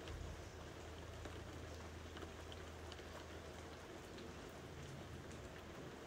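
Rain falling: a faint, even hiss with scattered individual drops ticking.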